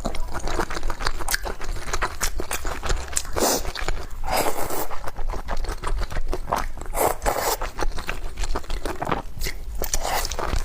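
Close-miked eating: irregular chewing and crunchy bites, with occasional scrapes.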